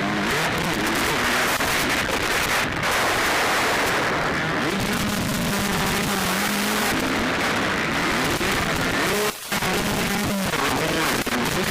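Motocross bike engines revving up and down as the riders race, recorded harshly with heavy noise over everything. The sound drops out briefly about nine seconds in.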